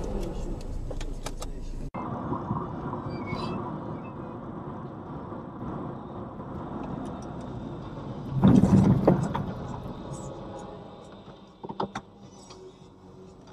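Steady road and engine noise inside a moving car, recorded by a dashcam. A loud burst of noise about eight and a half seconds in coincides with a car ahead crashing and rolling onto its side. A few sharp clicks follow near the end.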